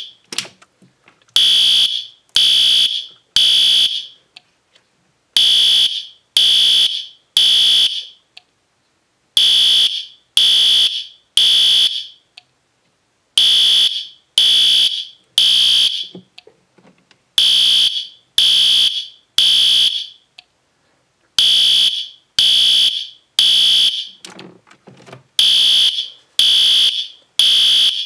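System Sensor P2R SpectrAlert Advance horn strobe sounding loud on its temporal low-volume setting. It plays the temporal-three fire evacuation pattern: three buzzy horn blasts about a second apart, then a pause, repeating about every four seconds.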